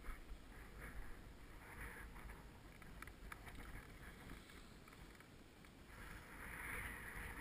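Faint wind on an action camera's microphone, a low rumble with a soft hiss that swells about six seconds in.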